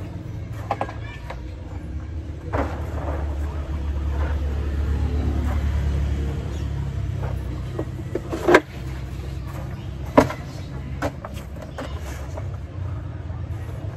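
Plastic tarpaulin being pulled and straightened over a bamboo-pole frame, with a few sharp snaps or knocks, the loudest two about a second and a half apart past the middle. Under it runs a low steady rumble that swells for a couple of seconds near the middle.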